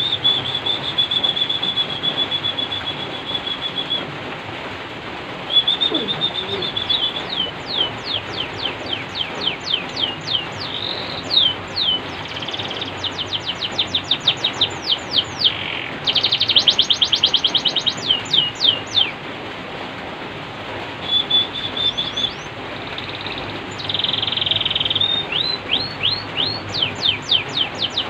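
Domestic canary singing: a long held whistle, then phrases of fast trills of quick falling notes and buzzy rolls with short pauses between them, over a steady hiss.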